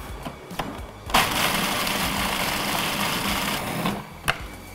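Food processor motor running at a steady pitch, chopping salted pretzels into fine crumbs. It starts suddenly about a second in, runs for nearly three seconds and cuts off, followed by a single click.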